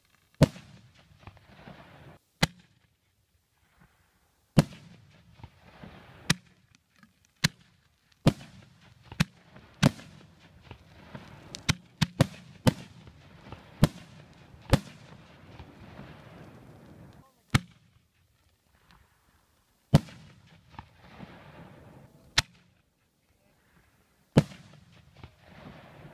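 Aerial fireworks bursting overhead: about eighteen sharp bangs at irregular intervals, each trailing off into the crackle and hiss of burning stars, with a few brief lulls between volleys.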